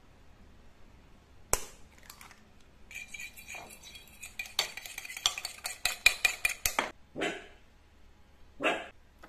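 An egg knocked once, sharply, on the rim of a ceramic plate, then a fork beating the egg against the plate: rapid clinking, about five strokes a second, for some four seconds. Two short, soft swishes follow near the end.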